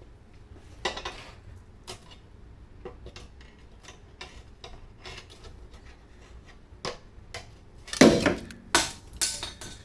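Scattered metal clinks and knocks of tools and exhaust parts being handled as the rest of the exhaust flange is taken off, with a louder clatter about eight seconds in.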